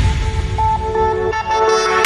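Background electronic music in a break where the beat drops out, leaving a held, horn-like synth tone that steps in pitch.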